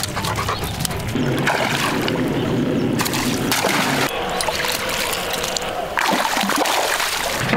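Water splashing and sloshing as a hooked fish thrashes at the pond surface and is drawn toward a landing net.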